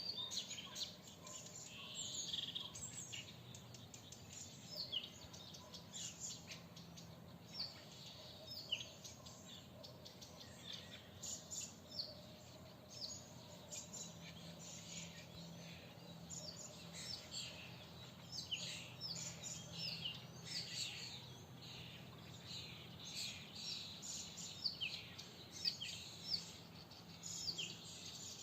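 Several forest songbirds singing and chirping in spring, with short high chirps and trills coming thick and fast throughout. A faint low steady hum lies underneath.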